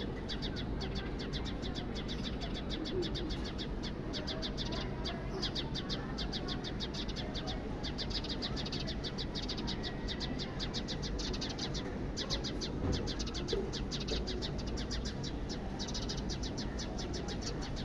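House sparrows chirping: a rapid, continuous run of short chirps that breaks off briefly now and then.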